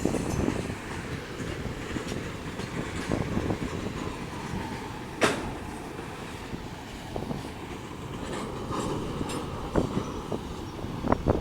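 A passing train on the BNSF line: wheels rumbling along the track with irregular clacks over the rail joints, and one sharp, loud clack about five seconds in.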